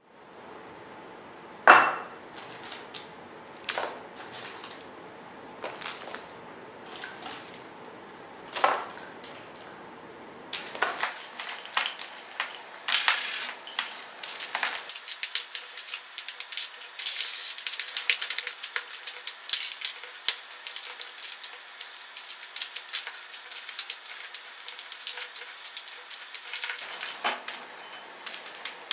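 A few sharp glass clinks, the loudest about two seconds in with a short ring, then dense crinkling and rustling of plastic candy-bar wrappers as handfuls of candy are pulled out of a glass jar. The background shifts abruptly a few times, as at edits.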